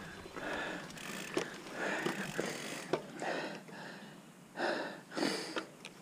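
Mountain-bike rider breathing hard close to the microphone, quick uneven breaths a second or less apart, with a few sharp clicks from the bike.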